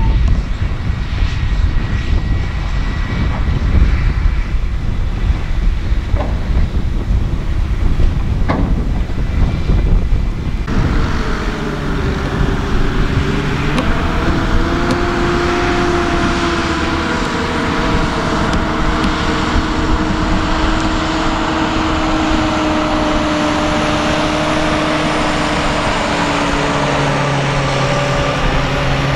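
John Deere 7R 330 tractor's six-cylinder diesel running steadily under load, pulling a Köckerling Quadro cultivator. For the first ten seconds or so there is a deep, uneven rumble with a few clicks. Then the sound changes abruptly to a nearer, steady engine drone with a hiss over it.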